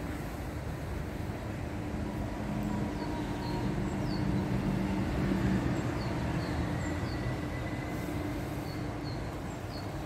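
A vehicle's steady low rumble and hum, while a small bird gives short high chirps several times.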